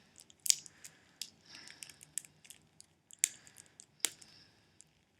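Card-pack wrapper crinkling and crackling in irregular snaps as fingers struggle to tear the packet open, with the sharpest snaps about half a second in, around three seconds and around four seconds.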